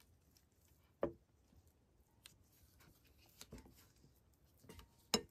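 Faint, scattered taps and scrapes of a spatula and hands against a glass mixing bowl while dough is mixed; two short knocks stand out, about a second in and near the end.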